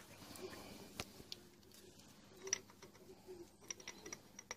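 Faint, scattered clicks and light metallic taps as the round oil filter cover on a Honda XL125S engine's side casing is handled, with a sharper click about a second in and quicker clicks in the second half.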